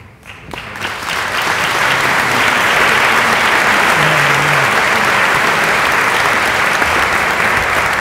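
Audience applause: many people clapping, building up within the first second and then holding steady.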